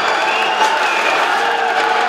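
Ice hockey arena crowd noise: a steady din of applause and cheering, with a few held tones over it, after a goal.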